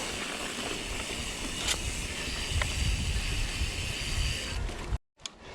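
Mountain bike riding down a dirt trail: steady wind rush and low rumble on the GoPro microphone with tyre noise, growing stronger through the middle, with a couple of sharp clicks from the bike. The sound cuts out abruptly near the end.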